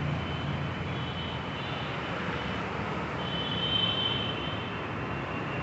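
Steady rumble and hiss of passing road traffic, with a faint high whine over it that is strongest about three to four seconds in.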